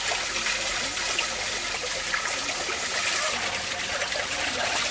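Water pouring steadily from a metal pipe outlet and splashing into a shallow concrete channel and over hands and fish held in the flow.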